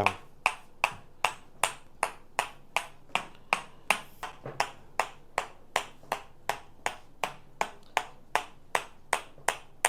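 A steady, even ticking: sharp clicks about two and a half a second.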